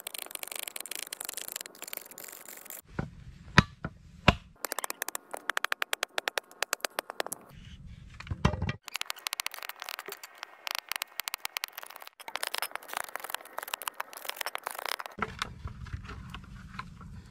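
Machete blade working bamboo: sharp knocks and quick scraping strokes as the bamboo is split and shaved. There are two loud knocks a few seconds in, then a fast, even run of strokes in the middle.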